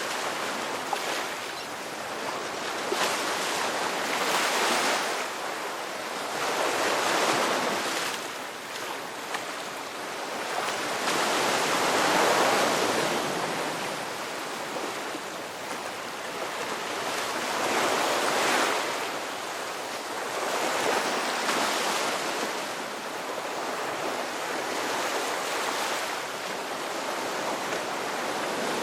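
Sea waves breaking and washing on a shore, a continuous rush that swells and eases every few seconds.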